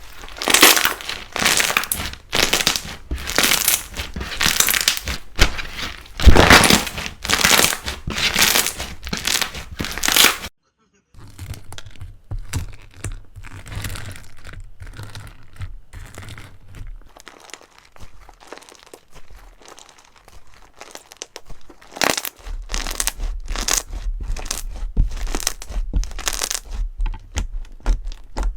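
Slime being squeezed and pressed by hand, making dense crackling and popping. There is a short dropout about ten seconds in; quieter crackles follow, then they grow louder again near the end.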